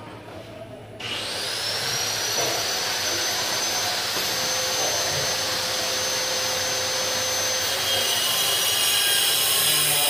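A motor-driven machine starts up about a second in, its high whine rising and then holding steady over a loud rushing hiss, and keeps running.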